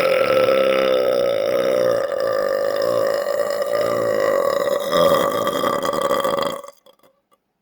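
A man's single long, loud deliberate belch: a 'gathered' burp of built-up swallowed gas, let out in one held, steady-pitched stream that cuts off about six and a half seconds in.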